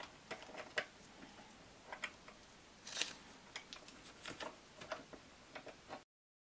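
Faint, scattered light clicks and taps from a small motor and metal parts being handled and clamped in a small bench vise. The sound cuts off abruptly about six seconds in.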